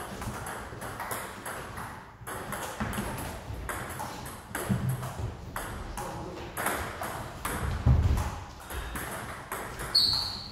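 Table tennis rally: a steady run of sharp clicks as the celluloid ball strikes the paddles and bounces on the table, with a few heavier thuds in the middle and a short high squeak near the end.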